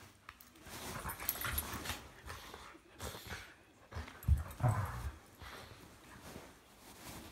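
Two dogs play-wrestling on a beanbag, vocalising and scuffling in irregular bursts, loudest about four and a half seconds in.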